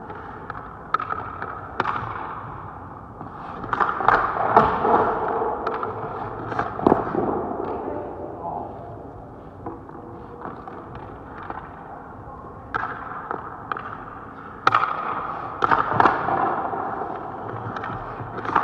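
Ice hockey goalie's skate blades scraping and cutting into the ice in bursts during crease movement drills, mixed with sharp knocks of pads and stick against the ice. The clusters are loudest about four seconds in and again a few seconds before the end.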